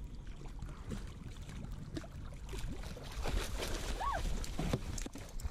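A hooked shark thrashing and splashing at the water's surface beside a boat hull as it is gaffed, the splashing getting louder from about halfway through.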